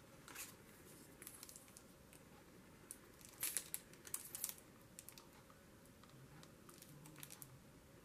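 Faint, scattered light clicks and paper rustles from a paper strip being handled while liquid glue is dabbed on from a Tombow Mono Aqua bottle's sponge tip. A short run of them comes about three and a half seconds in, with a few more near the end.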